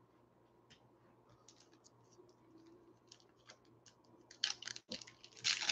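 Faint scattered clicks of cards being handled, then from about four seconds in the crackle of a foil trading-card pack wrapper being crinkled and torn open.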